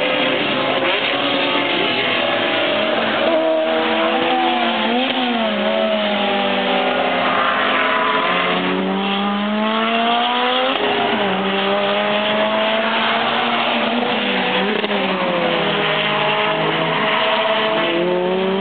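Several racing cars' engines running hard on the circuit at once, overlapping. Their notes climb under acceleration and drop at gear changes, with a sharp drop about eleven seconds in.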